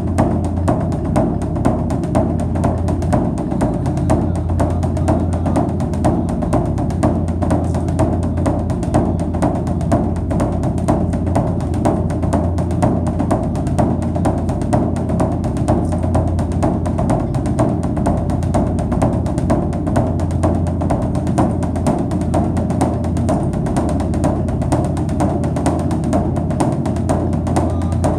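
Background music with a steady, regular drum beat.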